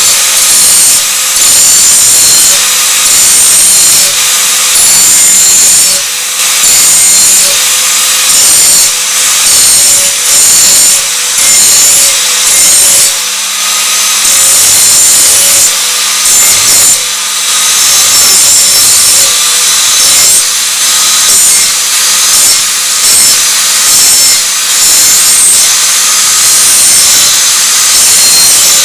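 Electric angle grinder with a grinding disc running continuously and grinding the cutting edge of a mulching lawnmower blade clamped in a vise. The loud grinding dips briefly and often between passes along the edge, over a steady motor hum.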